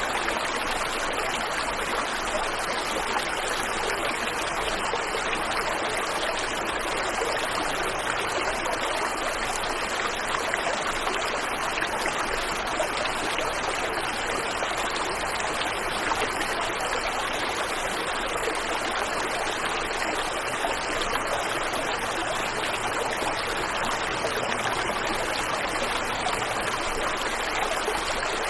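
Waterfall and river water rushing in a steady, unbroken stream.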